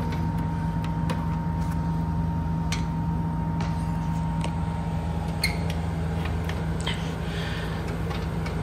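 A steady low mechanical hum with a fainter higher whine running under it, and scattered light clicks and taps from the heater wiring and metal parts being handled.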